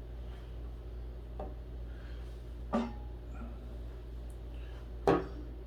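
Desk parts being handled and set against the desk during assembly: two sharp knocks a little over two seconds apart, the second louder, with a faint click before them, over a steady low hum.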